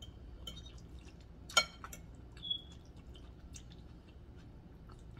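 Quiet close-up eating sounds: spaghetti being chewed with small wet mouth clicks, and a metal fork working through the pasta on a ceramic plate. One sharper clink with a short ring comes about one and a half seconds in.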